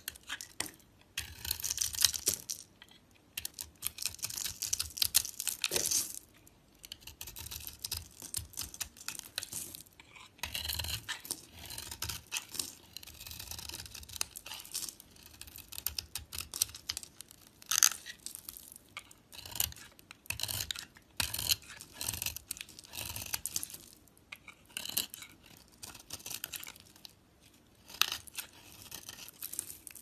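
Snap-off utility knife blade cutting and scraping into a dry bar of soap: repeated crisp crackling strokes as flakes and chunks break away, with short pauses between.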